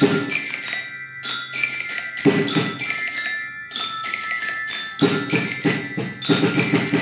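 Marching-band bell lyre with aluminium bars struck with a mallet, playing a reggaeton melody one note at a time, each note ringing bright and metallic. A deeper accompaniment sounds underneath at times, strongest near the start and in the last couple of seconds.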